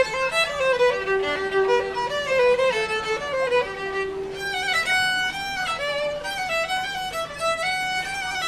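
Solo violin playing a melody, one held note after another with smooth changes of pitch between them.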